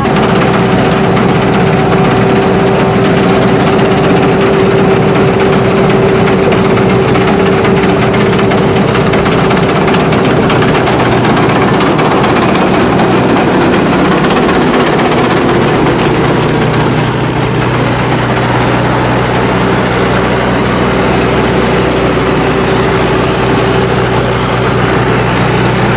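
Sakpattana SS-300 Black Bird combine harvester, with a 5-cylinder 170 hp engine, running steadily at work. It makes a loud continuous drone with a steady hum and a thin high whine that hold unchanged throughout.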